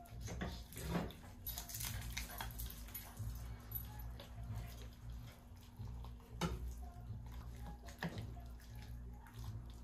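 Faint scraping and a few soft taps of a serving spoon scooping baked macaroni and cheese out of a glass baking dish, over a low steady hum.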